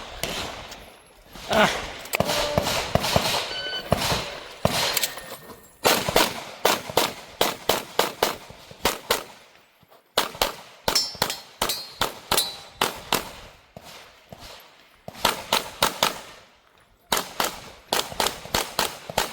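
Sig P320 pistol fired in fast strings of shots, pairs and quick volleys, with short pauses between strings, as in a practical shooting stage run.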